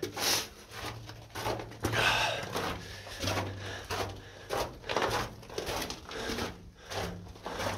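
Footsteps on the rocky floor of a mine tunnel, about two steps a second, sounding close and boxed-in.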